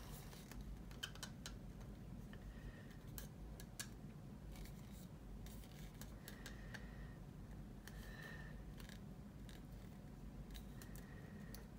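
Faint fingertip handling of thin vinyl scribing tape on a plastic model booster tube: scattered small clicks and rubbing as the tape is pressed and smoothed around the part, with a few short faint squeaks.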